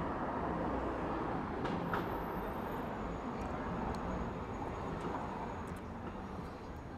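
Steady background rumble of distant traffic, with a faint low hum and a light click about two seconds in.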